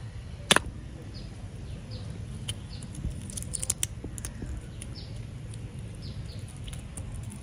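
Hands handling a die-cast toy car and chunks of ice, with small clicks and knocks and one sharp crack about half a second in. A bird chirps repeatedly in the background, short falling notes.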